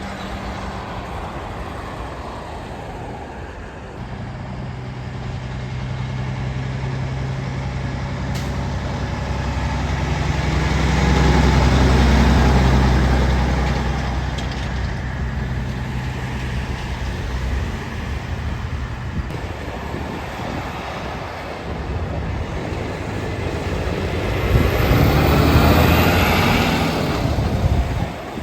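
Diesel semi-trucks passing. The low engine drone swells up to a peak and fades away, then a second truck swells past near the end.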